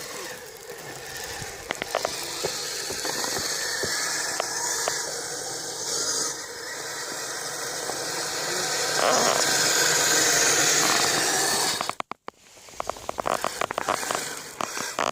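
Kyosho Blizzard radio-controlled snowcat running on its tracks: a steady rushing mechanical noise with scattered clicks. It cuts out abruptly about twelve seconds in, then comes back as a run of clattering clicks.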